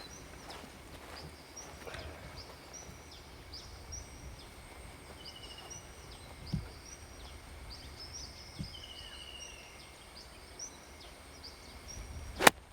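Rainforest birds chirping over and over, with a few trilled calls and a faint steady high whine behind them. Near the end comes a single sharp crack of a golf club striking the ball on a short wedge shot.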